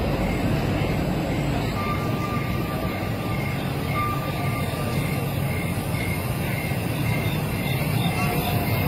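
Steady low rumble of downtown city noise, with a faint high tone pulsing at an even beat, about every half second or so.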